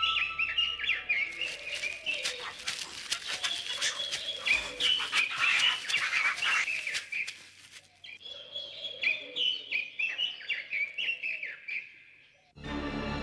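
Many small birds chirping in quick, overlapping calls, dropping away briefly about eight seconds in before resuming. Music comes in just before the end.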